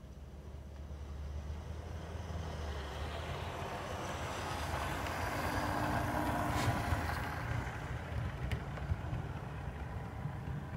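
Model diesel multiple-unit train running along the track past close by, its running noise building to a peak about six seconds in and easing off, with a couple of sharp clicks near the middle. The sound cuts off suddenly at the end.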